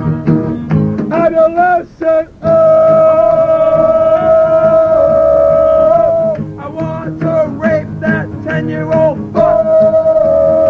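Acoustic guitar strummed under a male voice singing. There is a brief break about two seconds in, then a long held note, and another held note near the end.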